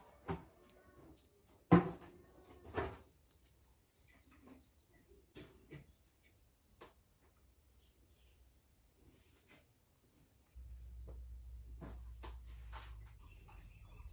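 Faint handling sounds of small clicks and taps, the loudest about two seconds in, as silver sugar pearls are placed on a cream-iced cake. Under them runs a steady high-pitched cricket-like trill. A low hum comes in about ten seconds in.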